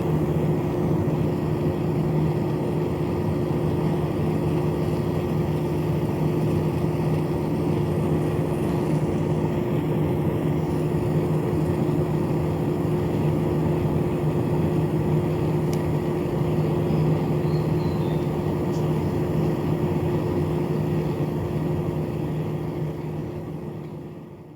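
Small battery-powered DC motor spinning a fan rotor inside a cardboard air conditioner model, a steady whirring hum that fades out near the end.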